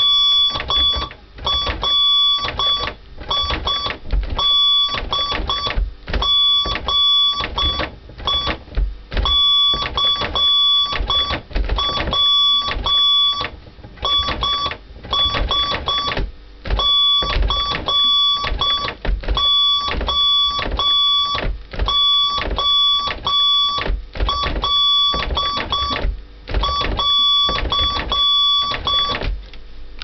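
A Morse code (CW) tone beeping on and off in short dits and long dahs, keyed by opening and closing a refrigerator door that is used as a telegraph key. Low knocks and rattles come from the door being worked.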